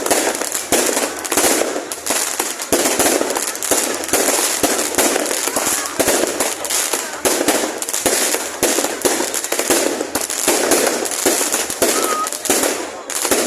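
Fireworks going off in rapid, unbroken succession: dense crackling with many sharp bangs a second.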